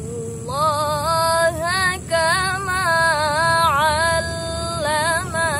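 A woman reciting the Qur'an in the melodic tilawah style: one solo voice holding long, high notes with wavering ornaments between short breaths. About half a second in, the melody steps up to a higher pitch.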